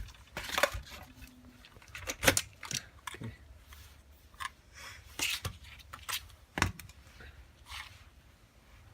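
Scattered sharp clicks and light knocks of a shifter knob and shifter assembly being handled, about a dozen irregular ones, the loudest about two seconds in and again past six seconds.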